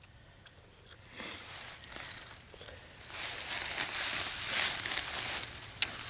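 Footsteps rustling through dry, dead grass, getting louder after about three seconds, with one sharp click near the end.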